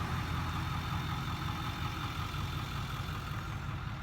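A motor vehicle's engine running steadily, a low, even drone that does not change.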